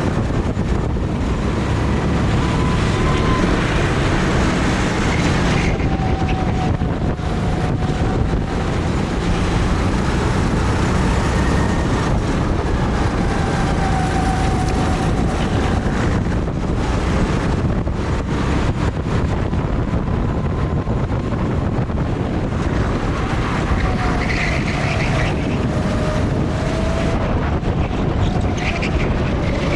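Strong wind buffeting the microphone, with faint engine tones of go-karts rising and falling as they lap a kart track.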